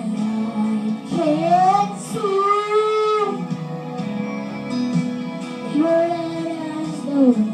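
A small child singing long, sliding held notes into a karaoke microphone over a music backing track. There are three drawn-out phrases.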